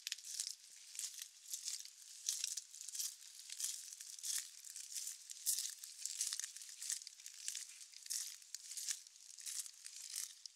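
Footsteps on wet ground at a steady walking pace, about three steps every two seconds, over a constant crackling hiss of rain.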